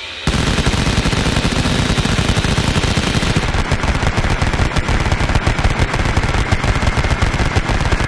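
Rapid, continuous machine-gun fire sound effect, a fast unbroken run of shots that starts just after the beginning.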